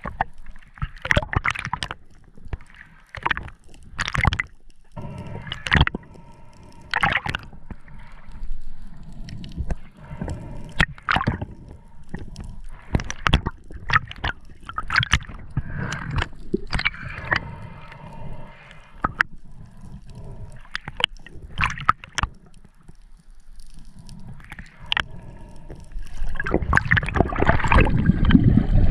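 Underwater sound: irregular sharp clicks and knocks over a low gurgling water hiss, swelling into a louder rush of bubbles near the end.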